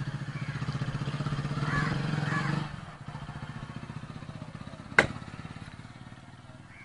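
An engine running with an even, rapid pulse, louder for the first two and a half seconds and then dropping away to a fainter run. A single sharp knock sounds about five seconds in.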